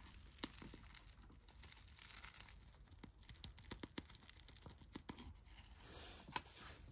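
Small granules of potting soil trickling from a plastic soil scoop into a small ceramic pot, a faint patter of many small irregular ticks, with one louder click near the end.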